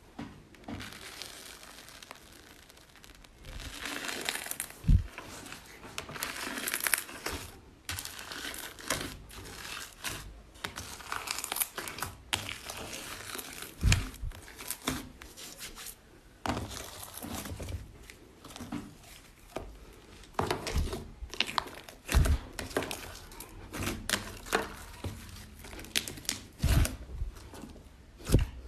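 Slime being squeezed and stretched by hand: a dense, irregular crackling of sticky pops and tearing, with a few louder thuds.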